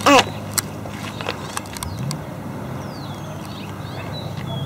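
A steady low motor hum that rises in pitch about two seconds in, with a short high squeaky call at the start, scattered sharp clicks and a few faint high chirps.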